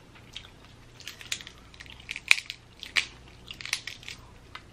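Cooked Dungeness crab shell cracking and snapping in the hands as the meat is pulled out. Scattered crackles, with the sharpest snaps a little past two seconds in and at about three seconds.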